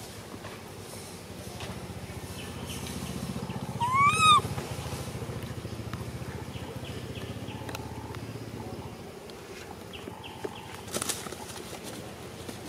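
A single short animal call about four seconds in, rising then falling in pitch, over a steady low hum and faint groups of short repeated chirps.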